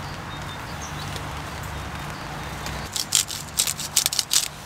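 Handling of camp gear: a quick, irregular run of clicks and rustles starting about three seconds in, over a steady low hum.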